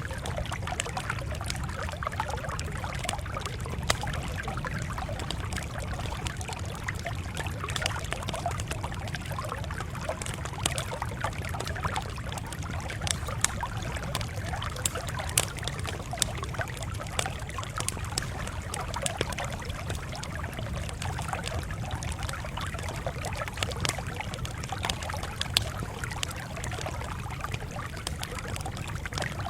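Campfire crackling, with frequent sharp pops and snaps over a steady low rumble.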